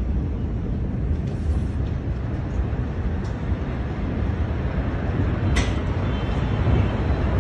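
Steady low rumble on a phone microphone, with a brief sharp click about five and a half seconds in.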